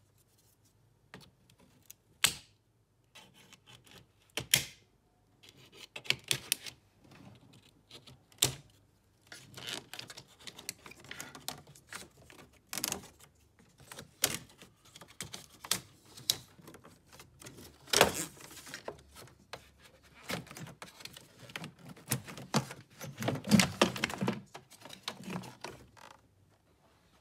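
Irregular clicks, ticks and knocks as a screwdriver turns out the T30 Torx screws of a BMW E46's plastic cabin-filter tray and the tray is worked loose and handled. A sharp knock comes about eighteen seconds in, with a cluster of rattling knocks a few seconds later.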